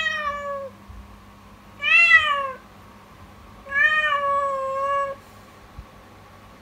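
Young cat meowing loudly three times in anguished, drawn-out calls, each rising then falling in pitch, the third the longest.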